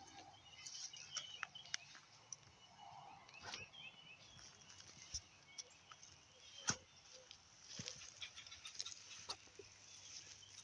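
Faint woodland ambience: small birds chirping in the distance, with scattered light clicks and rustles.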